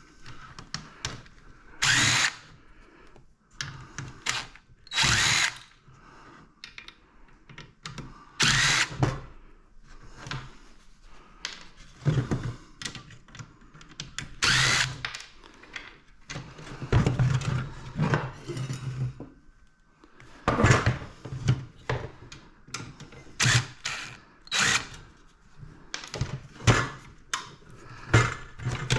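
Power drill running in repeated short bursts as it backs screws out of scrap electronics. Between the bursts come several loud sharp clanks of metal parts being handled or dropped.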